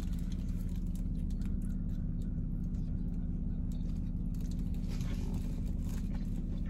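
Steady low hum in a car cabin, with soft chewing and small mouth clicks of someone eating.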